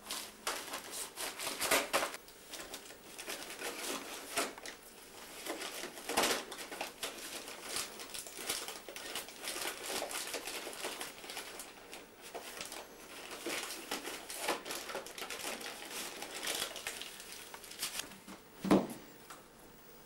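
Gift wrapping paper and plastic crinkling and rustling in irregular bursts as a Doberman noses through an opened present, with one louder thump near the end.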